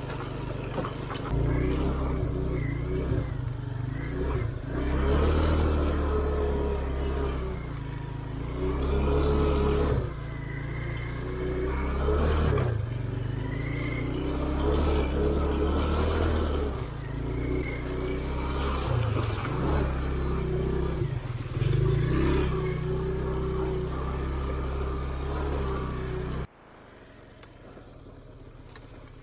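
Off-road motorcycle engine running under load, its pitch rising and falling over and over as the throttle opens and closes, with scattered knocks. The sound cuts off abruptly near the end, leaving a faint hiss.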